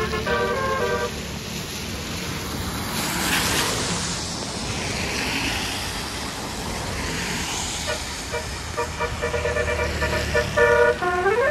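A bus's basuri telolet horn playing a quick tune of several chiming notes, breaking off for a few seconds of traffic noise, then starting again near the end with a rising glide.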